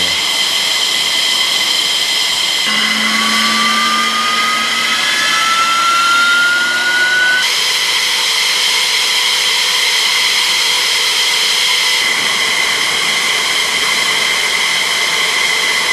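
F-16 jet engine running on the ground: a loud, steady high-pitched whine over a rushing hiss. A few seconds in, one tone climbs slowly in pitch for about four seconds, and the sound shifts abruptly twice.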